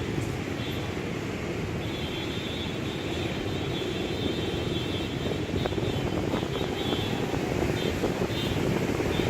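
Ambient background noise recorded on a Samsung Galaxy S7 Edge phone's built-in microphone: a steady low rumble, with a faint high-pitched whine that comes and goes through the middle.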